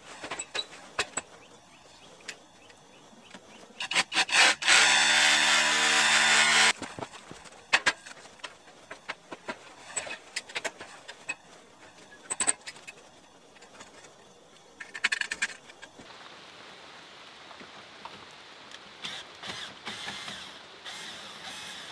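Handling and fixing work on a sheet of foil-faced insulation around a window from an aluminium stepladder: scattered clicks and knocks with rustling. About four and a half seconds in comes a loud, steady-pitched whir lasting about two seconds, and a shorter burst near fifteen seconds.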